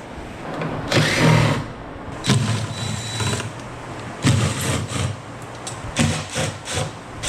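Handheld power tool run in about four short bursts of under a second each, with small metal clatter between them.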